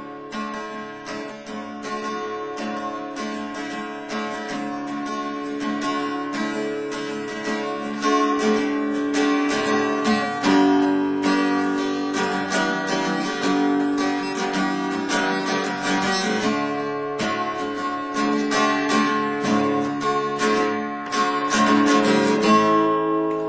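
Acoustic guitar strummed in a steady rhythm, with no singing. Near the end the strumming stops and a chord is left ringing.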